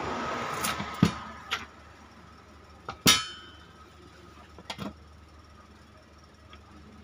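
Handling noise and metal clanks as a power transformer and its wires are worked loose inside a steel equalizer chassis. A scraping rustle comes first, then a few knocks and clicks; the loudest clank, about three seconds in, rings briefly.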